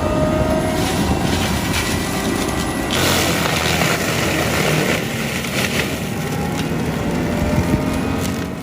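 Forestry mulcher running: a steady machine engine with a broad rushing, grinding noise from the cutting rotor, which thickens about three seconds in. The sound cuts off at the very end.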